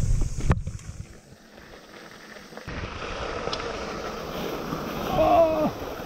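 A few knocks and rattles, then from about three seconds in a steady rush of wind on the microphone and tyre noise as the mountain bike gets moving on the trail. There is a brief pitched tone near the end.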